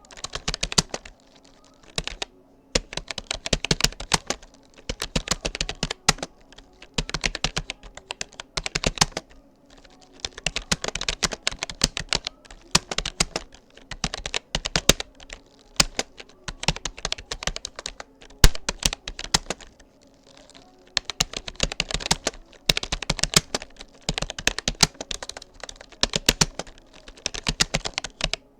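Keys of a Rapoo computer keyboard being typed in fast runs of clicks, broken by brief pauses of about a second.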